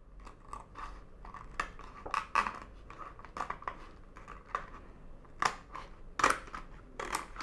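Scissors snipping through a stiff sheet of dried kombu (kelp): a run of short, crisp, irregular cuts, the loudest three in the last two seconds.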